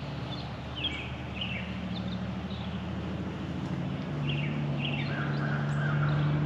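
Small birds chirping in short down-slurred notes, several times, over the steady low drone of a distant engine that grows louder about four seconds in.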